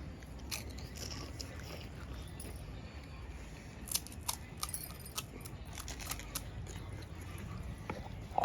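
A scatter of small sharp clicks and crackles, sparse at first and more frequent in the second half, over a steady low rumble of wind on the microphone.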